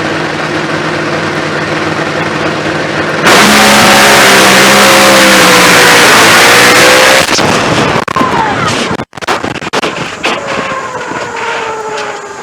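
Supercharged nitro Funny Car drag racer's V8 running loud, then going to full throttle for a run of about four seconds before dropping off with abrupt breaks. Falling pitched tones follow near the end.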